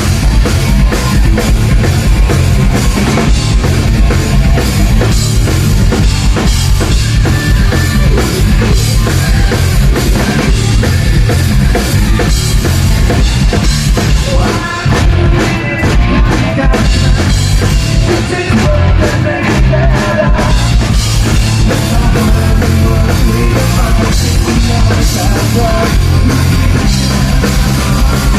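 Punk rock band playing loud and live, with a full drum kit driving the song and bass and guitars filling it out. There is a brief drop about halfway through.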